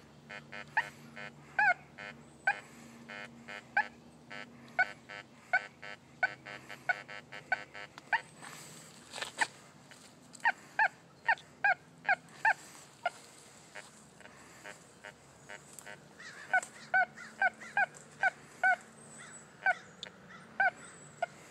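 Fisher F75se metal detector sounding short, repeated target beeps as its coil sweeps back and forth over a large hand-cut iron nail lying next to a piece of silver. The beeps come about once a second at first, then in quicker runs of about two a second, with a single sharp click about nine seconds in.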